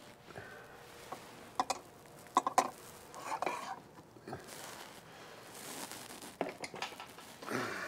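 Metal bar clinking and scraping against overhead eye bolts as it is pushed through them: a few sharp clinks about two seconds in, a scrape, then more clinks near the end.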